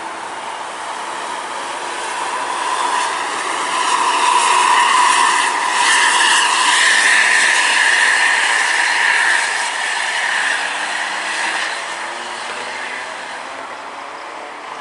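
A Mercedes-Benz OH 1626 coach driving past: its engine and tyre noise swell to a peak around the middle and fade as it moves away, with a sustained high whine over the noise.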